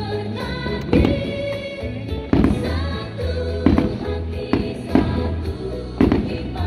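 Music with singing playing loudly, cut by a sharp bang about every second and a half.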